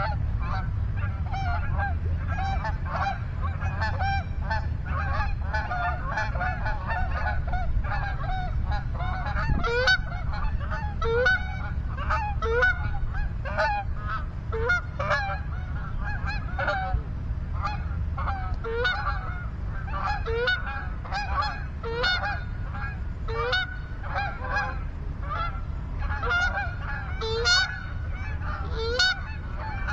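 Continuous goose honking, many short honks overlapping throughout, over a steady low rumble of wind on the microphone.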